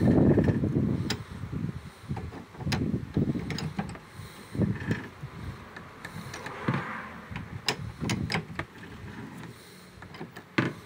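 Spare wheel cable winch of a 2013 Fiat Doblo being wound up by hand with a cranked winder bar: irregular mechanical clicking and rubbing as the cable draws the spare wheel cradle up, loudest in the first second.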